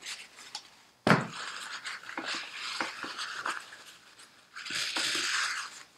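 A metal aerosol can of brake cleaner is set down on the bench with a clunk about a second in. Then a rag rubs and scuffs over the motorcycle's rear hub and brake drum, wiping off dust and rust, with a harder, denser spell of rubbing near the end.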